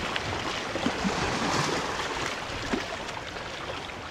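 Sea water washing steadily against shoreline rocks.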